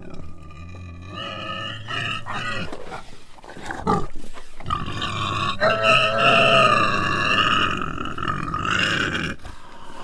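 An animal squealing: several short squeals in the first few seconds, a rougher stretch, then one long wavering squeal from about halfway in that breaks off near the end.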